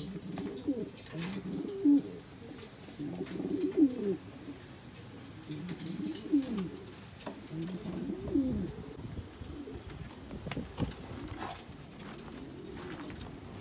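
Racing pigeons cooing: a series of low coos every second or two, which stop about nine seconds in; a few sharp knocks follow near the end.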